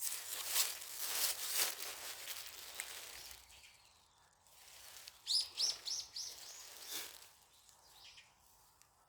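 A small songbird chirping: a quick run of about four sharp high notes near the middle, with a few fainter chirps after. Before it, a rushing noise swells and fades.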